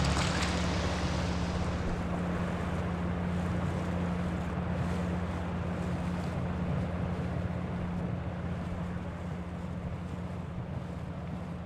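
Outboard motor of a rigid inflatable boat running under way: a steady low drone with wind and water hiss over it, slowly getting quieter.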